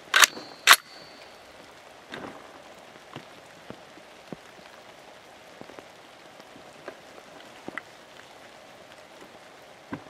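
Two sharp metallic clacks about half a second apart as the Norinco M305 rifle's action is worked to chamber a round, the second with a brief metallic ring. Then steady rain with scattered drops ticking.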